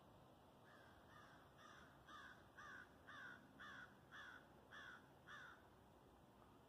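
A crow cawing, a run of about ten caws at about two a second.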